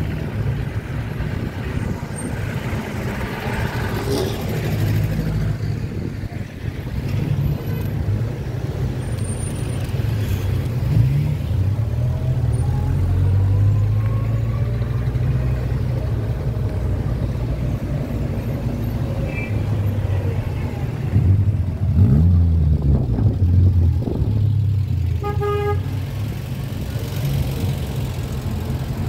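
City street traffic under a steady low rumble, with a vehicle engine rising in pitch about two-thirds of the way through. A car horn gives a short toot near the end.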